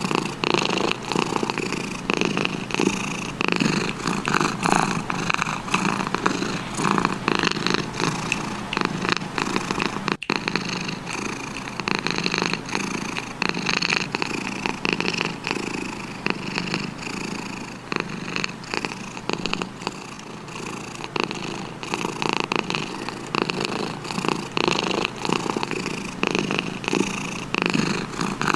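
Domestic cat purring steadily and close up, a continuous fast pulsing rhythm.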